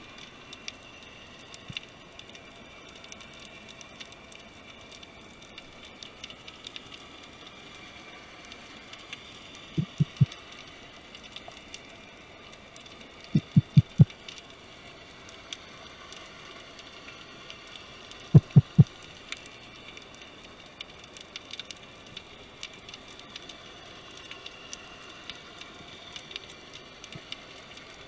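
Underwater ambience over a rocky seabed: a steady fine crackling and clicking. Three short runs of low knocking pulses stand out, two about a third of the way in, four a few seconds later, and three more past the middle.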